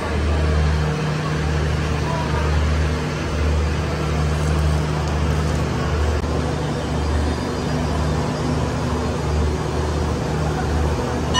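A large engine idling, a low drone that swells and fades about once a second over a steady hum.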